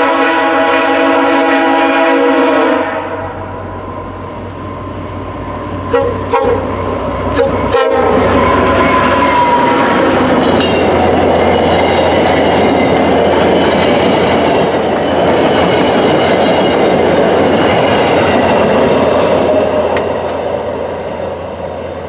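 VIA Rail F40PH-2D diesel locomotive's multi-note horn held in a long blast that cuts off about three seconds in, then the train with its LRC coaches passing close by. It makes a loud, steady rumble of engine and wheels, with a few sharp clacks as it reaches the platform, and the rumble fades near the end.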